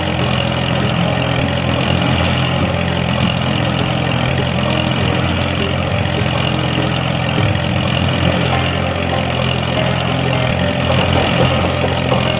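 An engine running steadily at idle, an even low drone with no revving.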